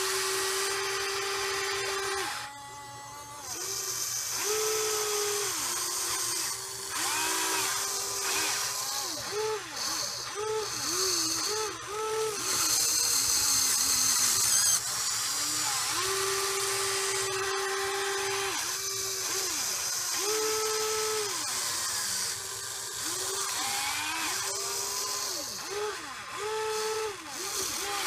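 Huina 580 RC excavator's electric motors whining in many short runs as the arm and bucket are worked. Each run starts and stops within a second or two, its pitch gliding up as it spins up and down as it stops, over a steady high gear hiss.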